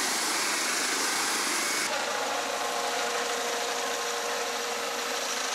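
Swiss Air Force aircraft flying low overhead: a steady rushing engine noise, joined about two seconds in by a steady droning hum.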